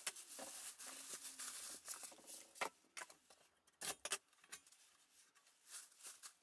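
Clear plastic wrapping crinkling and rustling as it is pulled off a chop saw, with irregular sharp crackles that are loudest about two and a half and four seconds in.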